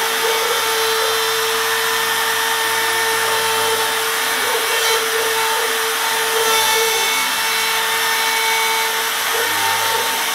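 CNC router spindle running at high speed with a steady whine, its small end-mill cutting into the block of a hull mould with a constant hiss.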